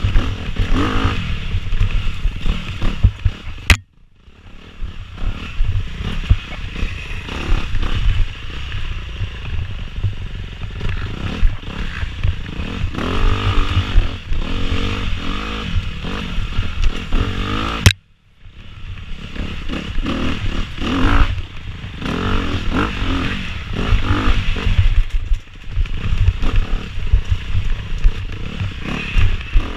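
Dirt bike engine revving up and down as the bike is ridden hard over a rough woodland trail, with wind rumble on the microphone and clattering and scraping from the bike over roots and ruts. Twice the sound cuts out abruptly for a moment just after a sharp click.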